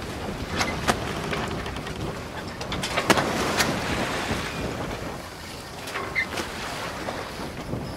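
Steady rushing noise on a moving canal tour boat: water, wind on the microphone and the spray of a fountain close by, with a few sharp clicks about a second in and again near three seconds.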